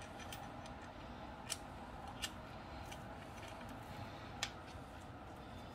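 Light handling noises of a rifle on a sling being put on: faint rustling with a few small clicks of the sling hardware against the rifle, three sharper clicks standing out.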